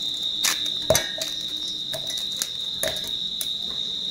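A cricket trilling steadily on one high note, with a few scattered sharp knocks.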